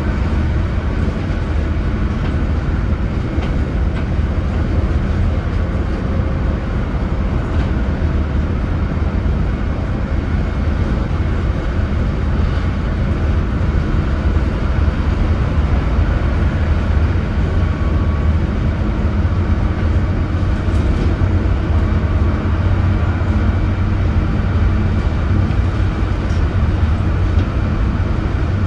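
Leyland Atlantean AN68/1R double-decker bus's six-cylinder diesel engine running steadily under way, a deep drone with a haze of road noise above it, a little louder in the second half.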